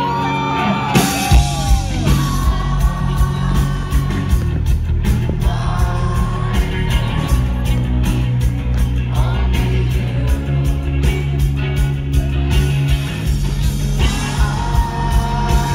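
Rock band playing live, with singing over electric guitars and drums; the full band comes in hard about a second in.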